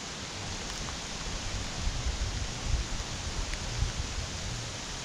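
Steady hiss of rain with wind buffeting the microphone in low, uneven gusts, strongest in the middle, and a few faint ticks.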